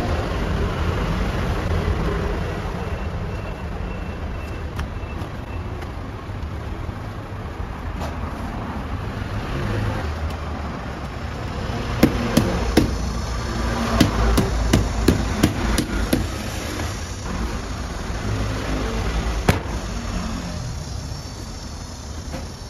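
Bread dough being handled on a stainless-steel worktable: a quick run of about ten sharp knocks and slaps a little past halfway, and one more a few seconds later, over a steady low rumble.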